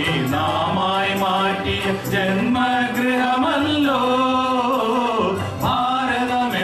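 A group of children singing an Indian patriotic song together, with instrumental accompaniment.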